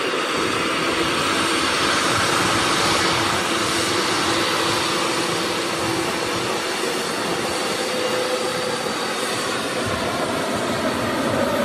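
Steady aircraft engine and airflow noise: a constant rushing sound with a faint steady hum.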